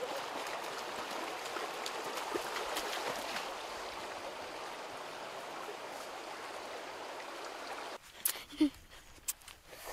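Shallow river running over stones, a steady rushing of water that cuts off abruptly about eight seconds in, leaving a few light knocks.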